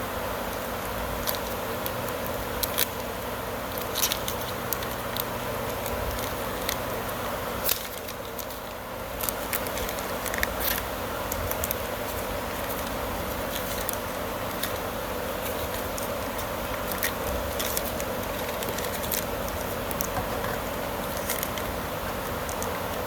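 Insulating tape being pulled off its roll and wrapped around a pump power-cable lead, making scattered crackles and clicks over a steady background hum.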